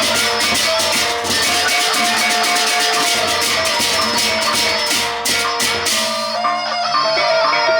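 Gendang beleq ensemble playing: drums and fast, dense cymbal clashing over a repeating line of ringing pitched notes. About six seconds in the cymbals stop and the pitched line continues alone.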